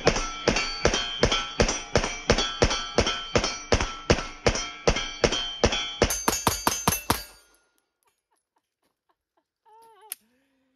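Rapid-fire pistol shots from a Smith & Wesson M&P 9mm Carry Comp with a ported, compensated slide: a fast, even string of about four shots a second for roughly seven seconds, emptying the magazine, then it stops. A metallic ring carries through the string.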